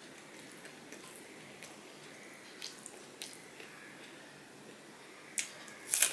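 Close-up eating sounds from a man eating rice and fish fry by hand: soft, wet chewing and small mouth clicks. Near the end come two sharp crunches as he bites into a slice of raw vegetable.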